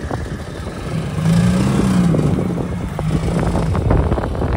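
Porsche 911 GT3's 4.0-litre flat-six engine running at low speed, its pitch rising and falling once. There are several light knocks near the end.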